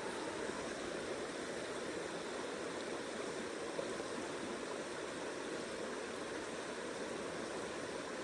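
A mountain trout stream flowing: a steady, even rush of running water.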